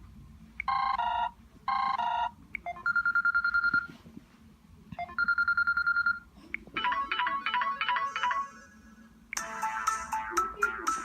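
Samsung Galaxy Y phone's loudspeaker playing a series of ringtones one after another. First come two short chimes, then a fast-pulsing electronic beep heard twice, then a quick run of notes. Near the end a fuller melodic ringtone with a beat begins.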